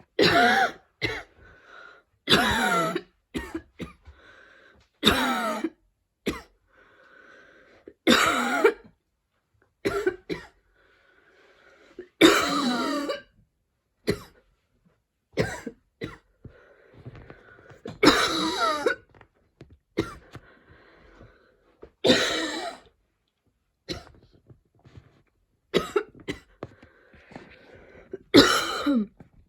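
A woman in a painful, choking coughing fit: harsh coughs come in repeated bouts, the loudest every two to three seconds, with short strained breaths between them.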